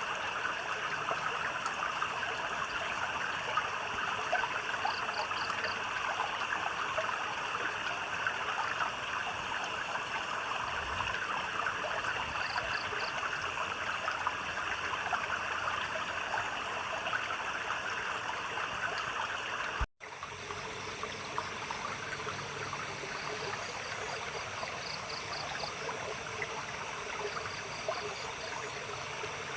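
Steady trickling and gurgling of flowing water, with a few short pulsed animal chirps calling now and then. The sound drops out for an instant about two-thirds of the way through.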